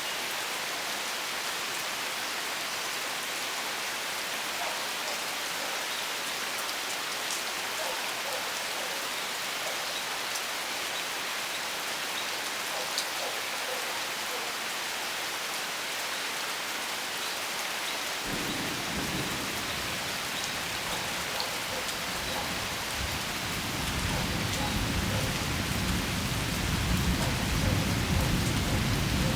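Rainstorm: steady rain falling throughout. A low rumble of thunder sets in about two-thirds of the way through and builds louder toward the end.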